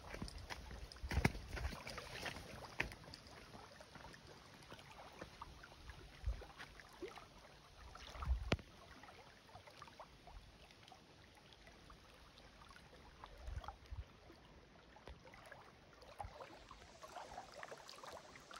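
Small waves lapping and splashing against a stony lakeshore, with scattered light clicks and a few dull thumps, the loudest about a second in and again about eight seconds in.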